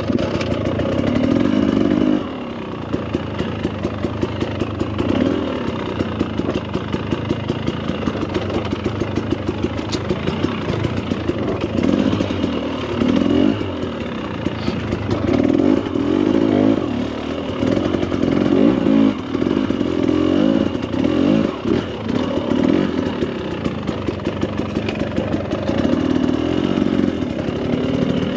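2024 Husqvarna TE300 Pro's two-stroke TBI engine being ridden, its note rising and falling with repeated short bursts of throttle.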